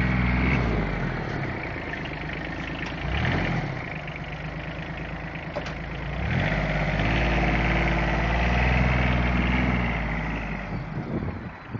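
John Deere Gator utility vehicle's engine running, with a short rev about three seconds in, then revving up and holding higher for about four seconds before dropping back.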